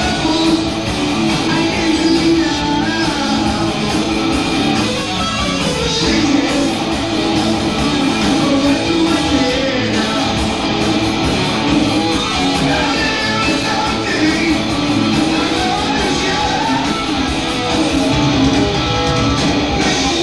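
Heavy metal band playing live: distorted electric guitar over bass and drums.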